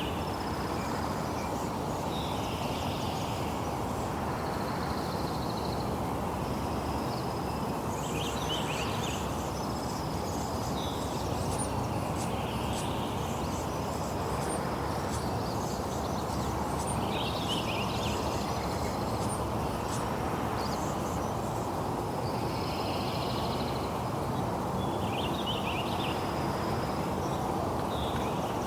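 Steady rain hiss, with birds calling over it every couple of seconds: short trilled calls and higher thin whistles repeated throughout.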